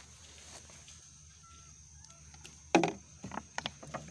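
A plastic bottle plunged into a bucket of well water to refill it: one loud splash nearly three seconds in, then several short splashes and knocks as it is worked under the water.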